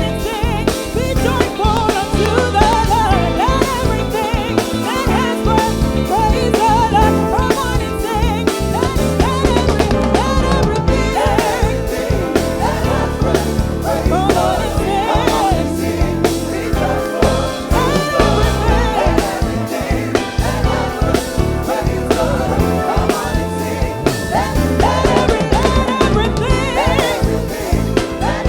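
Gospel praise-and-worship song: a lead singer's melody over a band, with a drum kit keeping a steady, busy beat.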